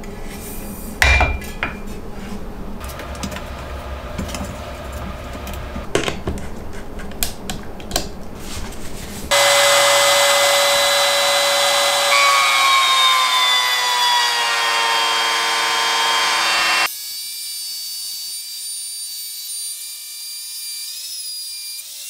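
Knocks and clatter of wood and clamps being handled for the first nine seconds, with one sharp knock about a second in. Then the RYOBI MTR-42 trim router runs loudly, its pitch dropping as the bit cuts into the board, and the sound changes abruptly to a quieter steady hum for the last five seconds.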